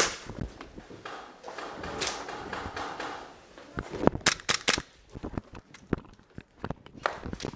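Airsoft guns firing: scattered sharp cracks and clicks, with a quick run of several about four seconds in.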